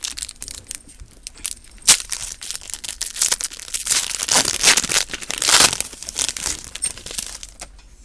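A trading card pack wrapper being torn open and crinkled by hand, a run of crackling rips that is loudest about halfway through.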